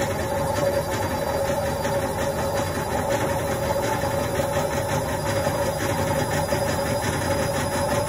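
Indesit front-loading washing machine on its spin cycle, the drum spinning at full speed: a steady whine at one pitch over a low rumble.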